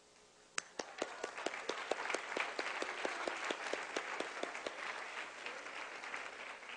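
Audience applauding: a few sharp claps about half a second in, building quickly into steady applause that thins out toward the end.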